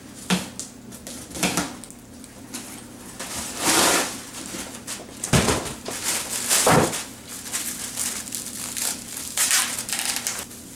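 Packaging being handled and pulled open: crinkling and crushing of wrapping material in several bursts, the longest about four seconds in.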